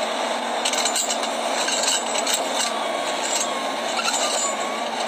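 Forestry skidder working over rocks: its diesel engine runs steadily while the tyre chains clink and scrape against stone.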